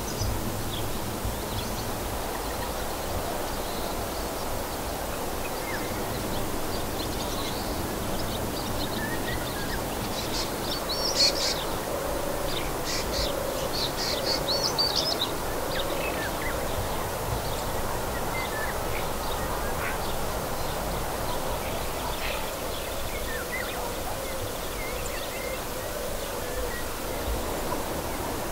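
Early-morning riverside ambience: a steady hiss of background noise with wild birds chirping now and then, and a busier patch of rapid high chirps around the middle.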